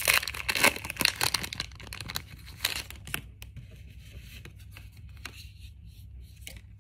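Foil booster-pack wrapper being torn open and crinkled: a dense run of crackling in the first second and a half, thinning to scattered crinkles, then only faint ticks of handling.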